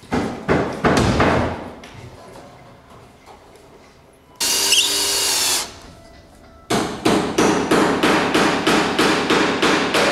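Cordless drill-driver screwing into wooden boards: a few sharp knocks, then the drill whirring for about a second near the middle. In the last third comes a fast even run of knocks, about four or five a second, over a steady hum.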